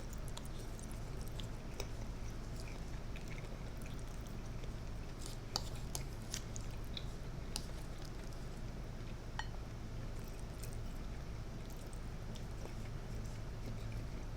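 Close-miked chewing, with soft wet mouth clicks and smacks scattered throughout, over a steady low hum.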